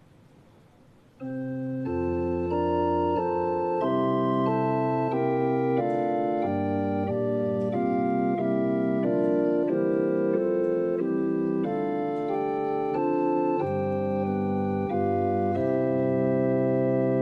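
Church organ playing the introduction to a hymn: sustained chords that change every half second or so at a steady level. It comes in about a second in and stops at the very end.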